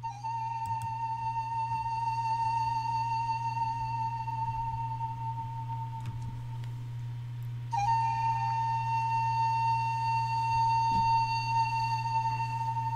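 Instrumental music: a pan flute holds two long notes with a slight vibrato, the second starting about eight seconds in, over a steady low drone.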